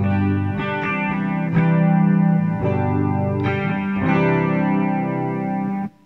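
Electric guitar (Lyon by Washburn HSS) played through a Zoom G1Four multi-effects pedal, strumming a riff of sustained chords with a fresh attack every second or so. The playing stops abruptly near the end.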